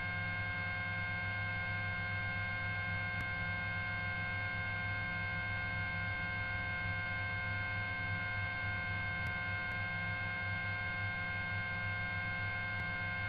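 Steady electrical hum with several thin, steady whining tones above it, unchanging throughout, on the helicopter's radio and intercom audio between transmissions.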